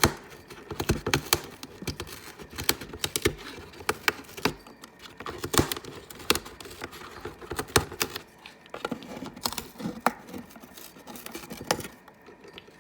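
A parrot's beak chewing and shredding a chew toy: a rapid, irregular run of sharp crunching clicks that stops near the end.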